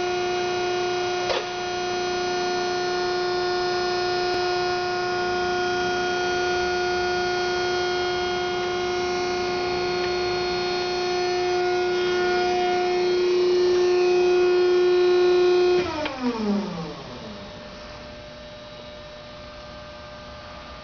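Hydraulic pump motor of a 1993 Wysong 100-ton press brake running with a steady whine. About sixteen seconds in it is switched off, and the whine falls in pitch as the motor spins down, leaving a faint hum.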